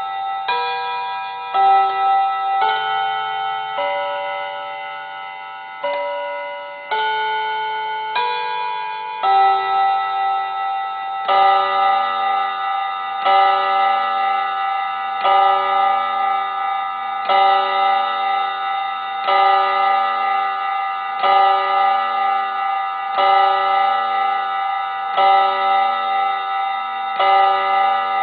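Mantel clock chiming on its gong rods. It plays a melody of ringing notes about a second apart, then strikes the same tone every two seconds, nine times in this stretch, counting out the hour.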